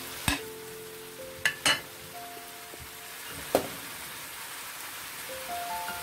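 Beef, broccoli and bell peppers sizzling in a stainless-steel pan as they are stir-fried, with a utensil knocking sharply against the pan four times. Background music with held notes plays underneath.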